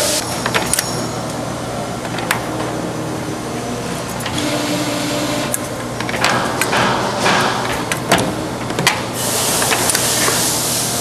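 A CNC machine running: a steady hum with scattered clicks and knocks, and a burst of hiss about nine seconds in.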